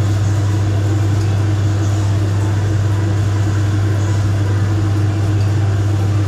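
A loud, steady low hum, like an appliance motor or electrical hum, that neither rises nor falls.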